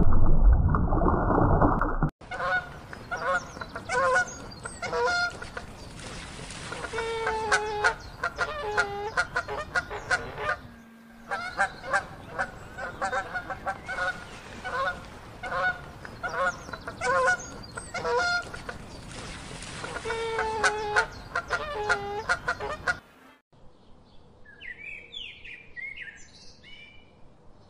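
A brief deep underwater rumble with bubbling, then a group of penguins calling over and over with honking, braying calls for about twenty seconds, with a short break near the middle. Near the end small birds chirp faintly.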